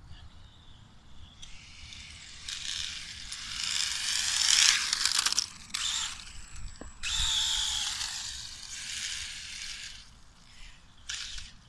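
Radio-controlled drift car's electric motor and drivetrain whining, rising and falling in pitch as it accelerates and slides across asphalt, with tyre scrub. It makes two passes, the first and louder ending about five and a half seconds in, the second from about seven to ten seconds in.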